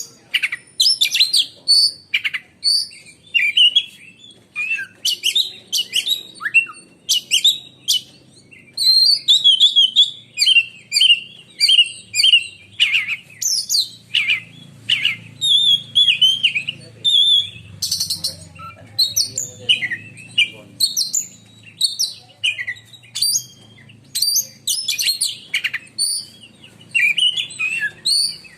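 Oriental magpie-robin (kacer) singing a loud, shrill, fast song. Its short whistled phrases and chattering notes follow one another with only brief pauses.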